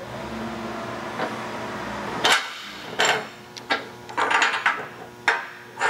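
Steel sockets and a clutch release bearing clinking and knocking against the steel table of a hand-operated arbor press. The sharp metallic knocks start a little over two seconds in and come singly and in quick clusters about every half second to a second.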